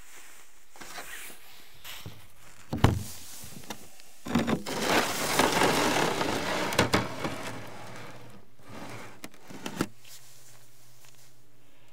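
Scraping and rubbing against wood, with a sharp knock about three seconds in and a longer stretch of rubbing in the middle, then settling to a faint low hum.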